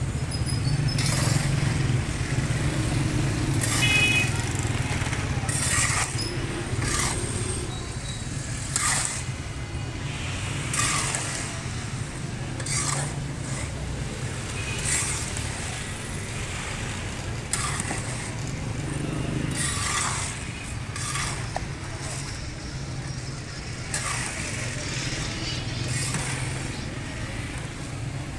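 Flat metal scoop scraping and tossing peanuts through hot salt in a large iron wok, a rasping rattle about every two seconds, over a steady low hum.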